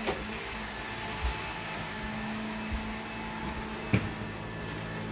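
Household vacuum cleaner running steadily with a low hum. A short knock comes right at the start, and a louder one comes about four seconds in.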